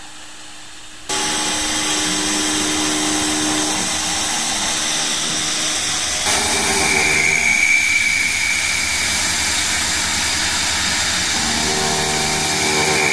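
Stepper-converted X2 mini mill machining aluminium: the spindle and end mill cutting with a steady, loud noise, and low pitched tones from the feed motion coming and going. The sound steps up about a second in, and a steady high whine joins about six seconds in.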